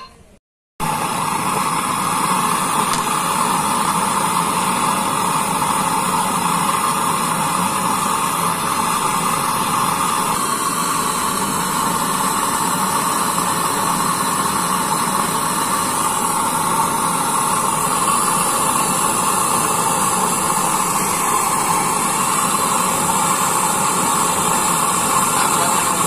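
Gas brazing torch flame hissing steadily while brazing a charging valve onto a refrigerator compressor's copper process tube.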